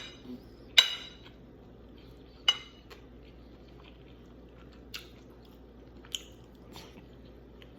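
Cutlery clinking against a plate during a meal: two sharp ringing clinks, about one and two and a half seconds in, then a few lighter taps and clicks.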